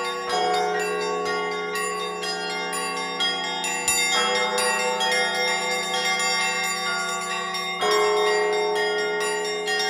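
Russian Orthodox church bells rung by a single bell-ringer: quick, rapid strikes on the small bells over the middle bells, and a deep bell struck three times about every three and a half seconds, its hum carrying underneath.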